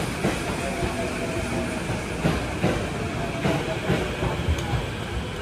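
Tokyo Metro Tozai Line electric train rolling along the platform as it pulls in: a steady rumble of running noise, wheels clacking over rail joints at uneven intervals, and a faint steady whine.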